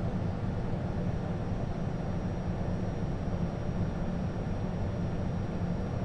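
Steady low rumble of airflow and jet engines inside an airliner's cockpit on final approach, landing gear down and flaps at the landing setting, with a faint steady high whine above it.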